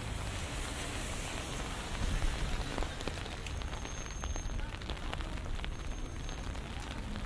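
Steady rain, with the patter of many small drops over a low rumble.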